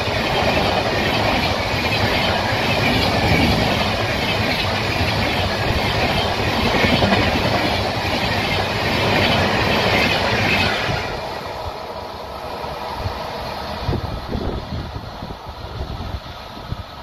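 Passenger coaches of an Amrit Bharat Express rushing past close by at speed, with a loud, steady roar of wheels on rails. The noise drops away sharply about eleven seconds in as the end of the train passes, leaving a fading rumble.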